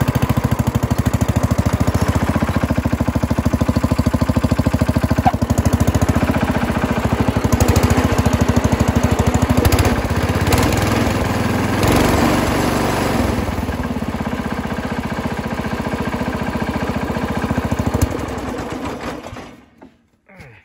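Massey Ferguson 12 garden tractor's single-cylinder engine running with an even, steady beat, then switched off about a second before the end and dying away. It is running better than before, its carburettor trouble having been sorted.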